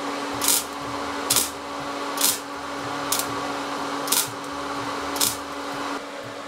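Regular scraping strokes on metal at the bench vise, about one a second, seven in all, over a steady machine hum.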